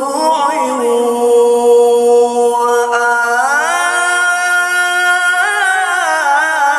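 A male qari's voice reciting the Quran in one long, unbroken melodic phrase. It holds one note, glides up to a higher held note about halfway through, and slides back down near the end.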